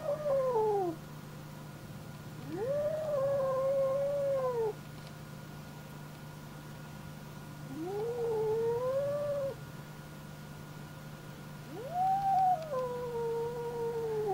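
Cat caterwauling: long, drawn-out yowls, each rising sharply and then sliding down over about two seconds, coming about every four to five seconds, typical of a cat calling in courtship. A steady low hum lies underneath.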